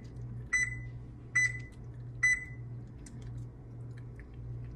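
Electronic oven control panel beeping as its buttons are pressed: three short, high beeps a little under a second apart, then a few faint clicks, over a steady low hum.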